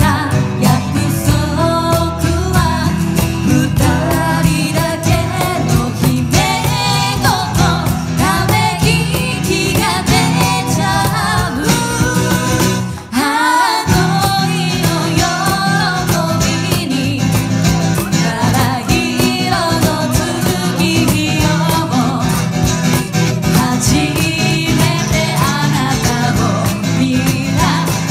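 Two women singing a pop song into microphones over acoustic guitar accompaniment, amplified through a PA, with a brief break in the music about halfway through.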